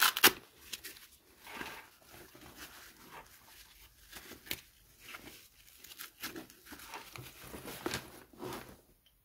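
Fabric bicycle trunk bag being handled: irregular rustling and scraping as its straps, flaps and mesh pockets are pulled and folded, with a couple of sharp clicks right at the start.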